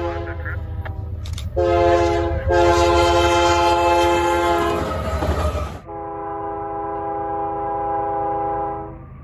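Canadian Pacific diesel freight locomotive's air horn sounding for a grade crossing: the end of one blast, a short blast, then a long one, over the close rumble of the engine and train. About six seconds in it changes to CP 8848's distant second-generation Nathan K5HL horn, one long steady chord that stops near the end.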